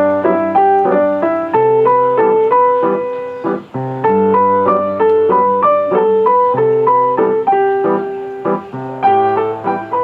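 Piano playing an instrumental passage of struck chords over low bass notes, each chord ringing and fading before the next.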